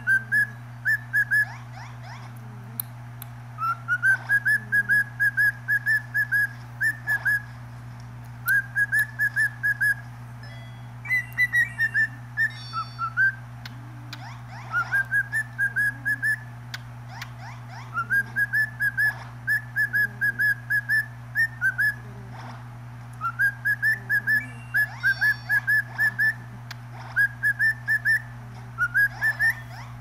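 Cockatiel whistling its song: phrases of short, repeated whistled notes, each phrase opening with a quick rising glide and coming round again every two to three seconds.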